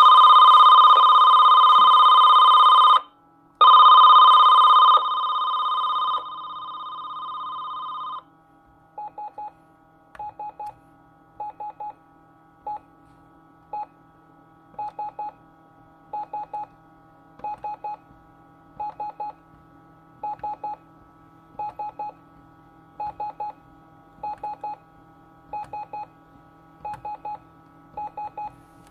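Loud, steady electronic tones, cut by a short break about three seconds in and stepping down in level until they stop about eight seconds in. They give way to short electronic beeps in clusters of one to three, repeating roughly every second and a half over a faint steady hum.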